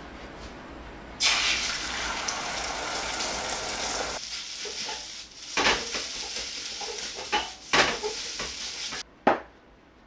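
Ingredients hit hot lard in a wok and it bursts into a loud sizzle about a second in. Fried rice then sizzles more quietly while a metal ladle stirs it, with several sharp scrapes and clanks of the ladle against the wok. The frying cuts off suddenly near the end, and one short clink follows.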